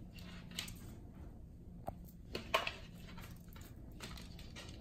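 A handful of light taps and clicks over quiet room noise, from a kitten in a plastic cone collar playing with a spiky rubber ball on a hard floor.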